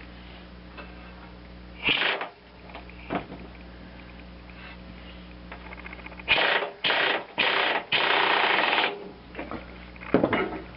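A mower spindle retainer nut being run down with a socket wrench: four short bursts of rapid mechanical rattling, the last the longest, with an earlier single clack. A steady low hum lies underneath.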